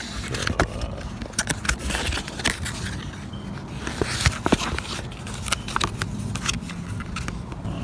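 Plastic being worked into a makeshift oil funnel: irregular crackling and sharp clicks with brief stretches of scraping.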